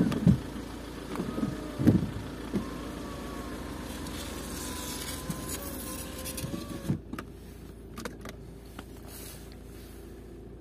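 Car noises: several knocks in the first two seconds over a steady low hum, then a faint whine from a small electric motor that runs for several seconds and stops about seven seconds in, followed by a few sharp clicks.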